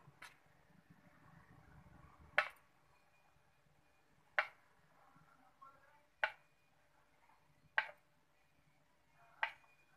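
A metal spoon clinking against a bowl six times, about every two seconds, while beaten yogurt is ladled out.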